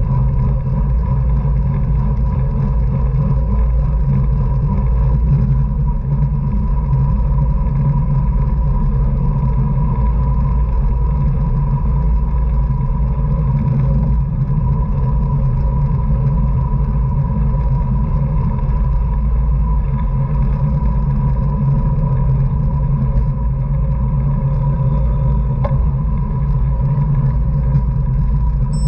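Wind rushing over the microphone of a camera on a racing bicycle at speed: a steady low roar, with a faint steady whine above it.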